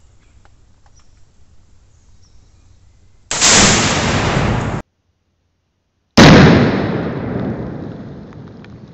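A 2-pound tannerite charge detonating when the rifle shot hits it, heard twice: about three seconds in a very loud blast that cuts off abruptly, then after a second of silence the same blast again, fading slowly over the next few seconds.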